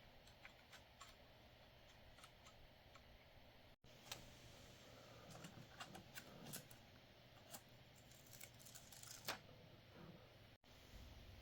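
Near silence with faint scattered clicks and light handling noise, a little busier in the second half. The sound drops out completely for an instant twice.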